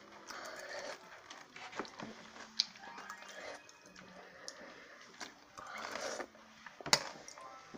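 Close-up eating sounds: sipping broth from a metal spoon and chewing, in short on-and-off stretches. Two sharp spoon clicks, one about two and a half seconds in and a louder one near the end.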